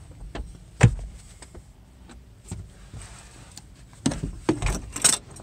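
Knocks and rattles of things being handled inside a camper van: one sharp knock about a second in, then a quick cluster of knocks and clatter near the end.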